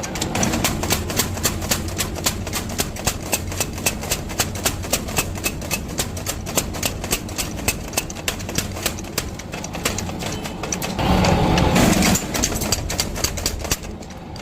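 Mechanical power hammer striking steel in a steady rhythm, about three to four blows a second, over the low hum of its motor. About eleven seconds in, a louder, rougher noise rises for about a second.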